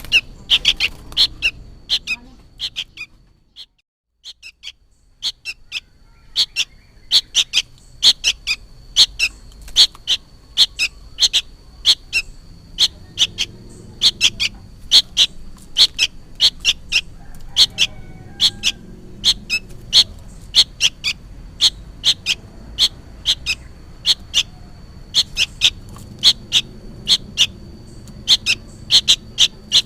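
A young sooty-headed bulbul (kutilang) calling over and over in short, sharp high notes, about three a second, breaking off briefly about four seconds in. The calls are noisy and insistent, which the uploader takes for a young bird calling its parent. A steady thin high tone runs underneath.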